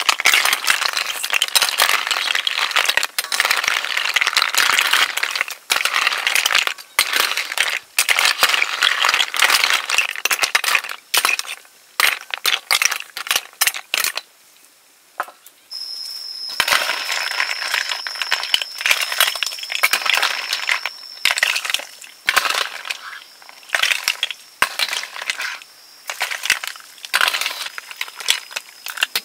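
Snail shells clattering and clicking against a metal ladle and wok as they are stirred and scooped, busy and dense at first, then sparser after a brief lull near the middle. A steady high-pitched whine runs under the second half.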